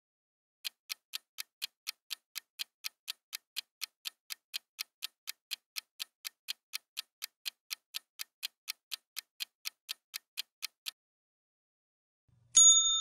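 Countdown-timer clock ticking, about three ticks a second for about ten seconds, then stopping. Near the end a loud bell ding rings on, signalling that time is up.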